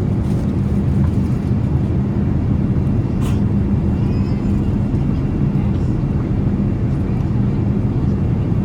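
Steady low drone of airliner cabin noise inside a Boeing 787-8 Dreamliner, with a constant hum throughout. Faint voices come through underneath.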